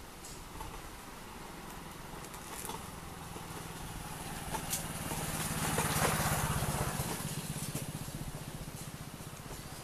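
A motor vehicle's engine passing by: its low, rapidly pulsing hum grows louder to a peak about six seconds in, then fades away.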